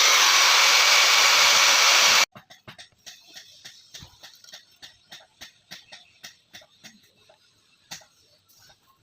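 A small machine's steady, loud rushing noise stops abruptly about two seconds in. Faint, irregular light taps and clicks follow, several a second.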